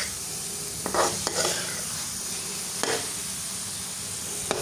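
Egg pieces and masala being stirred in a kadhai of hot oil: a steady sizzle with a few scraping strokes of the stirring utensil against the pan, about four in all.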